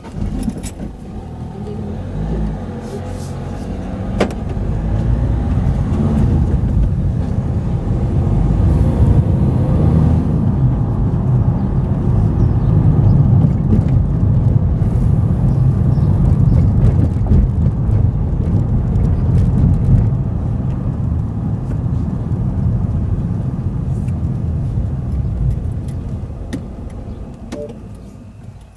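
Car engine and tyre noise heard from inside the car as it is driven along a road. The noise grows over the first several seconds, holds steady through the middle, then eases as the car slows and stops near the end.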